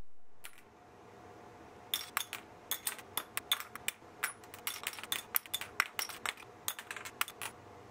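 Small plastic rings tossed onto a cutting mat strewn with model-kit parts: an irregular run of light clicks and clinks as they land and bounce off the mat, plastic funnels and brass pieces, starting about two seconds in.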